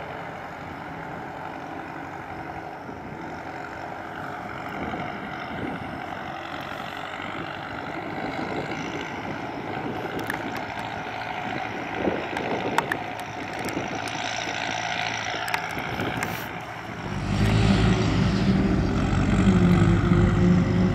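A steady distant engine drone, then, from about 17 seconds in, a diesel farm tractor pulling a silage trailer close by, its engine running loud and steady.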